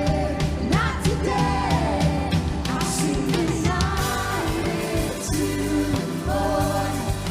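Live worship band playing a song with a singer, over guitar, bass and drums with a steady beat.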